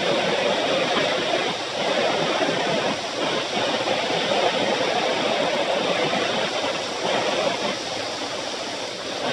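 Steady rushing wind noise on the microphone together with tyre noise, from a bicycle moving fast downhill on an asphalt road.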